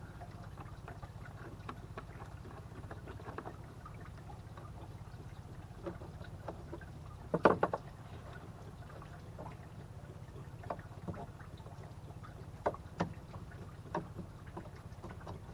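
Scattered small clicks and knocks of a screwdriver loosening hose clamps and hands working the plastic engine air intake duct loose, over a steady low rumble. A short cluster of louder knocks comes about seven and a half seconds in.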